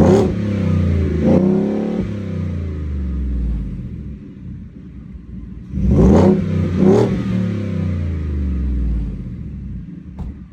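Ford F-150's 5.0 L Coyote V8 revved in two quick blips at the start and two more about six seconds in, each time falling back slowly toward idle. The exhaust has cheap tailpipe turbo-whistle inserts fitted, and they add no clear turbo whistle: 'absolute dog', 'horrible'.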